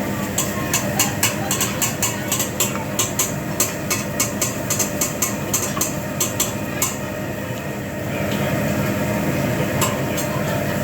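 Hibachi chef's metal spatulas clacking rapidly on the steel griddle, about three to four strikes a second, over the steady hum of the hood; the clacking stops about seven seconds in and a louder steady hiss takes over.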